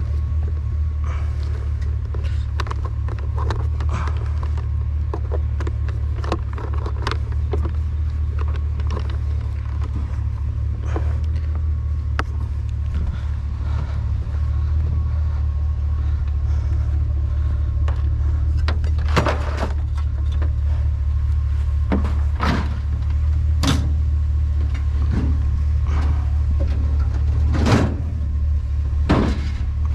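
Scattered clicks, knocks and clanks of scrap being handled and cut, over a steady low rumble; the knocks grow louder and more frequent in the second half.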